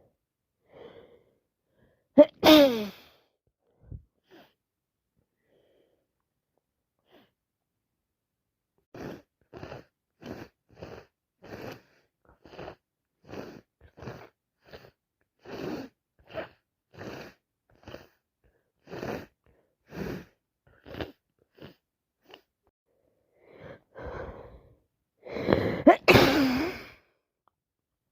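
A person with a heavy cold sneezing hard about two seconds in, a single loud sneeze with a falling voice. A long run of short, quick breathy sniffles follows, about two a second. A few catching breaths then build into a second loud sneeze near the end.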